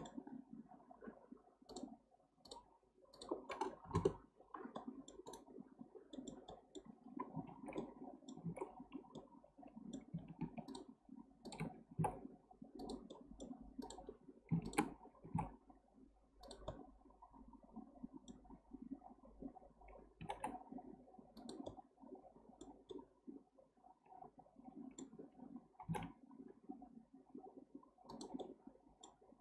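Irregular clicks of a computer mouse and keyboard keys, some singly and some in quick runs, over faint steady background noise.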